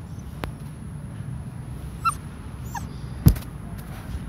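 Puppy giving two brief, high whimpers, with a sharp knock a little after three seconds in.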